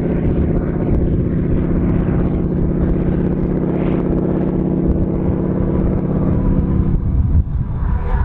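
North American Harvard trainer's Pratt & Whitney R-1340 Wasp nine-cylinder radial engine and propeller running loud and steady in flight. The engine note dips and changes about seven seconds in, then carries on.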